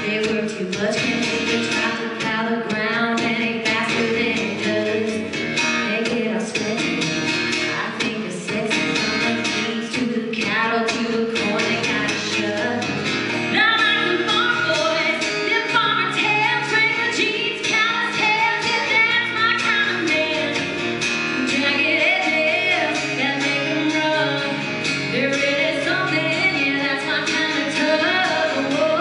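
Live country music: a woman singing into a microphone, backed by an acoustic guitar strummed in a steady rhythm. Her voice comes through stronger from about halfway on.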